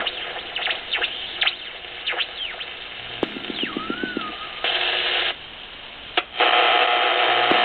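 Ten-Tec 1054 regenerative shortwave receiver being tuned by hand: static and hiss with quick whistles sweeping down in pitch as the dial passes signals, and a wavering tone near the middle. There are loud bursts of noise about five seconds in and again from about six and a half seconds.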